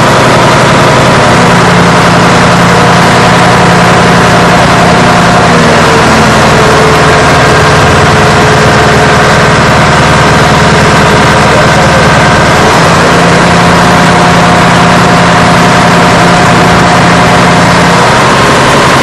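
Fire truck's engine running steadily and loudly, its pitch stepping up and down a few times as it powers the aerial ladder.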